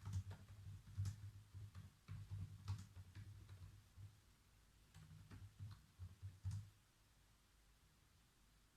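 Computer keyboard typing: a quiet run of irregular keystrokes that stops about two-thirds of the way through.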